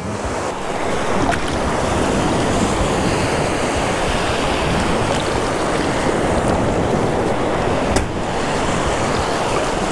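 Ocean surf breaking and washing in the shallows, a steady rushing of water heard close at water level.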